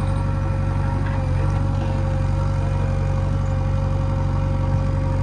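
Heavy diesel engine running steadily at an even speed: a low, even drone with a thin steady tone above it.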